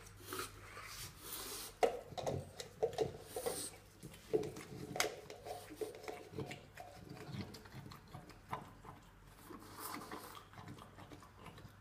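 French bulldog nosing and licking at a plastic peanut butter jar, the jar knocking and scraping irregularly against the floor.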